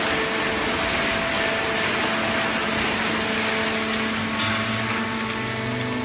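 Automatic horizontal cardboard baling press and its feed conveyor running: a steady mechanical hum and hiss of motors and hydraulics, with a lower hum joining about four and a half seconds in.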